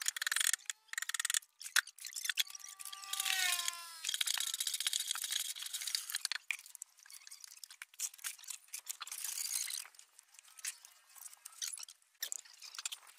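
Wet cement-and-sand mortar being scooped with a shovel and poured from buckets: irregular gritty scraping and sliding with sharp clicks. A few short gliding, whistle-like tones come about three seconds in.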